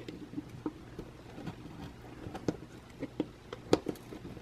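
Scattered light clicks and scraping taps as a soldering iron tip works a wire's solder joint on a morse key's small metal terminal, over a faint steady low hum.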